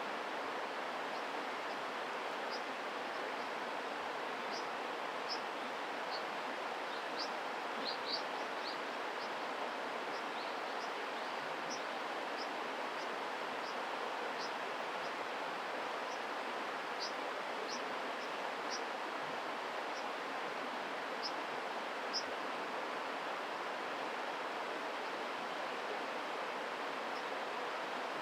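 A mountain stream rushes steadily. Over it, a brown dipper gives short, sharp high calls at irregular intervals, which stop after about two-thirds of the way through.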